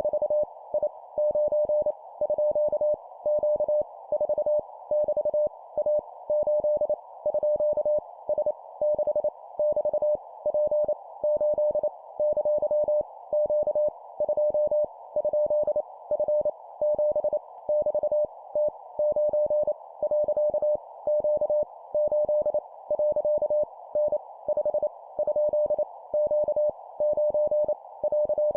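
Morse code (CW) sent at 25 words per minute: a single mid-pitched beep keyed on and off in dots and dashes, spelling random letters, numbers and punctuation, over a steady narrow band of hiss like a receiver's filtered noise.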